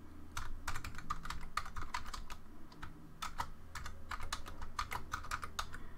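Typing on a computer keyboard: an irregular run of quick key clicks as a short name is typed in.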